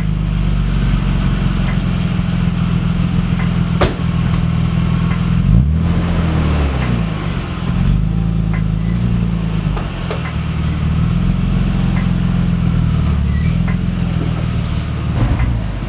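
BMW E36 engine idling through its newly installed exhaust just after start-up, with one throttle blip about six seconds in that rises and falls, and a couple of smaller revs later. A single sharp click about four seconds in.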